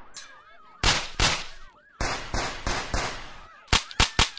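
A gunfight's shots: about nine sharp gunshots in three quick clusters, two about a second in, four between two and three seconds in, and three in fast succession near the end.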